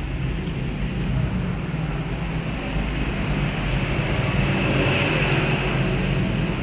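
Steady low rumble with a hum underneath, and a hiss that swells about four to five seconds in, then eases.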